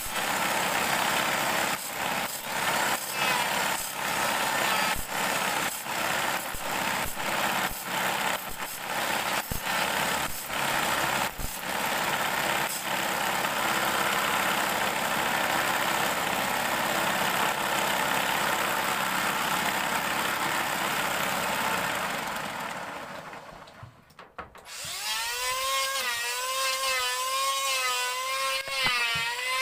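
Motor-driven grinding disc sharpening a steel bandsaw blade: the teeth rasp against the spinning disc, with short breaks about once a second at first, then steadily. Near the end the sound dips briefly and a whirring whine with a wavering pitch takes over.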